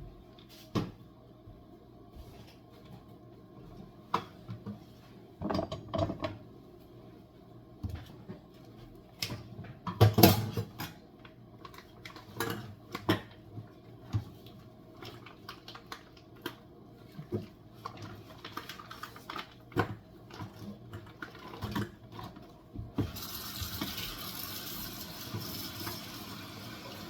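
Kitchen clatter: scattered knocks and clinks of dishes and utensils, then a tap starts running steadily near the end.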